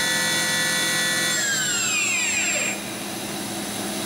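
Spindle of a Kitamura Mycenter 1 vertical machining center whining steadily at 8,000 RPM with no tool fitted. About a second in, the whine falls steadily in pitch as the spindle winds down, and the sound eases off near the end.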